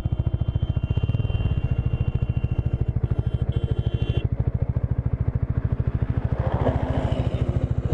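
Bajaj Dominar 400's single-cylinder engine idling with an even, rapid pulse while the motorcycle stands still.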